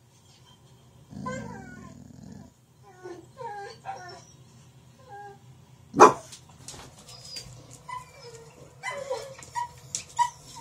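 Dogs whining, yipping and grumbling in short calls that bend up and down, with one sharp loud knock about six seconds in.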